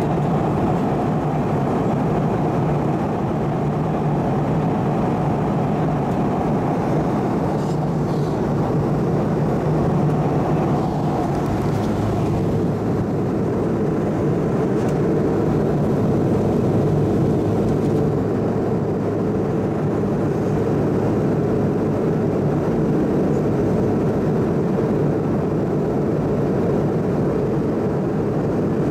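Steady engine and airflow noise inside the cabin of an Airbus A320 in flight: a low, even drone.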